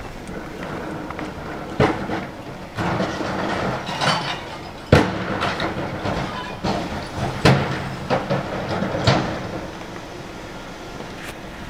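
Recyclables clattering into the hopper of a McNeilus rear-loader recycling truck as plastic carts are tipped in by hand. Several sharp bangs of the carts knocking against the hopper, the loudest about five seconds in, over the truck's engine running steadily.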